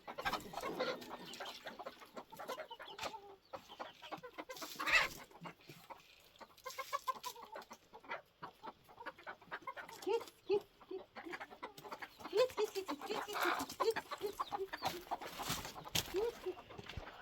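Chickens clucking, a run of short repeated clucks that grows busier in the second half, with a few sharp knocks among them.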